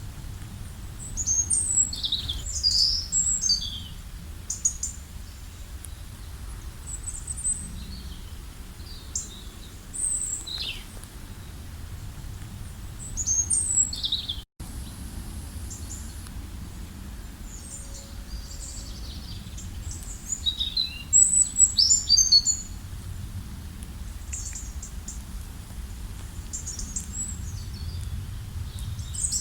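Songbirds chirping and singing in short, high, quick notes, in clusters at the start, about halfway and again about two-thirds of the way through, over a steady low rumble. The sound cuts out for an instant about halfway.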